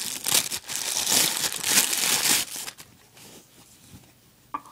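Thin clear plastic bag crinkling loudly as it is handled and peeled off a wristwatch, for about the first two and a half seconds; then it goes much quieter, with a short click near the end.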